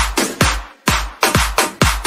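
Electronic dance-pop music with a steady kick-drum beat about twice a second. The beat drops out briefly just before the one-second mark.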